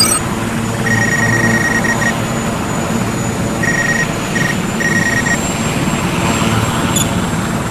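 Multirotor drone's propellers and motors running with a steady hum, with short high beeps in two runs, about a second in and again around the middle.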